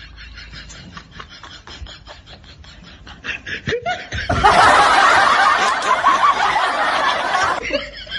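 Laughter: quick, regular snickering pulses, then about three seconds in the middle of a much louder, fuller burst of laughing before the snickering resumes.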